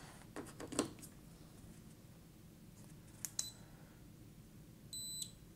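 A USB-C plug clicking into a FNIRSI HS-02B soldering pen, a single click about three seconds in, then one short high beep from the pen near the end. The pen is powering up normally with the cable reversed.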